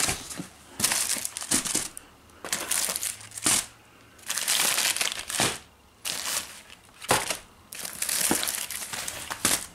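Cardboard packaging and plastic-wrapped firework packs being handled, crinkling and crumpling in a series of uneven bursts with short pauses between.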